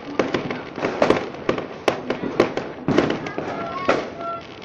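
Fireworks bursting in quick irregular succession: sharp bangs and crackles, about two loud ones a second, overlapping one another.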